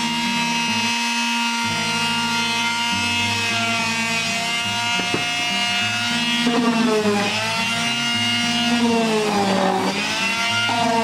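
Electric palm sander running on a wooden birdhouse, a steady whine whose pitch sags and recovers twice, around six and a half and nine seconds in.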